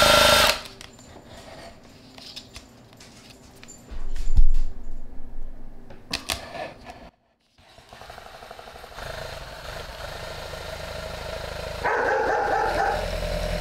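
Electric drill spinning a paddle mixer in a plastic mixing cup of two-part concrete sealer: a short burst of mixing at the start, a thump about four seconds in, then the drill running steadily, louder over the last couple of seconds.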